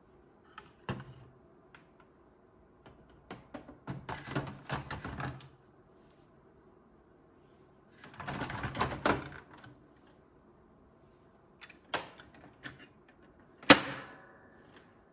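Plastic clicks and clatter as a Brother DR-B023 drum unit with its TN-B023 toner cartridge is handled and slid into a Brother laser printer. A longer scraping slide comes in the middle, then a few clicks and one loud sharp snap near the end as the printer's front cover is shut.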